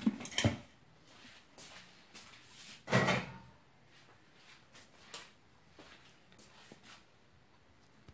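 A stainless steel pot and lid being handled: a couple of sharp clicks at the start, one louder knock about three seconds in, then faint scattered taps.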